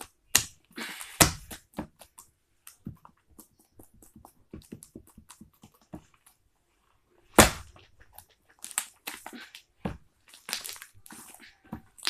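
Homemade fluffy shaving-cream slime being squished and pressed by hand, giving irregular sharp clicks and pops of trapped air, with a few louder snaps about 7 and 10 seconds in and short crackling stretches.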